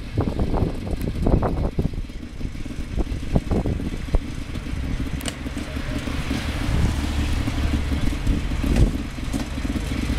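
A car engine running, with a low rumble and occasional short knocks.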